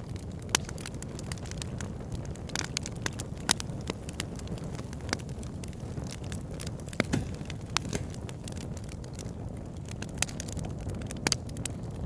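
Fire crackling, with irregular sharp pops over a steady low rumble of flames.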